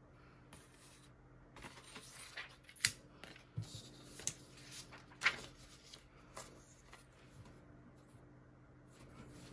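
Sheets of paper and vellum being handled: faint rustling with light crinkles and a couple of sharper snaps, about three and five seconds in.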